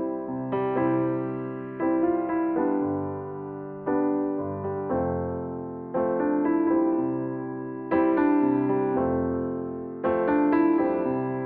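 Background music: piano or electric piano chords struck about every one to two seconds, each dying away before the next.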